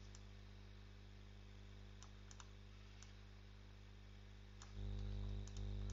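About half a dozen faint, scattered computer clicks as lines of code are selected and moved in an editor, over a steady low electrical hum.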